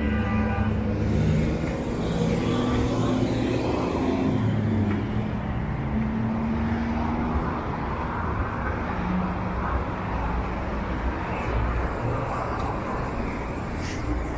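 City road traffic: car engines and tyre noise in a steady, continuous wash.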